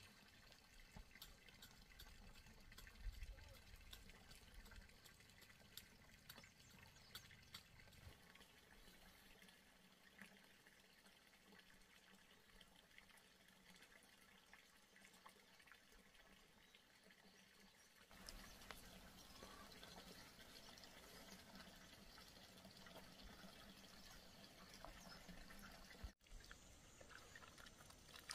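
Near silence: faint background noise with scattered small clicks, a little louder from about 18 seconds in.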